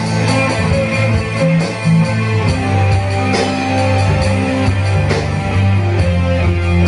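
Small rock band playing live in a room: electric bass, electric guitar, keyboard and an electronic drum kit, in an instrumental passage without singing.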